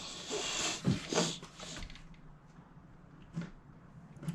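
Effortful breathing and two short falling grunts about a second in, as a hinge pin that is stuck fast is forced, then a few light clicks.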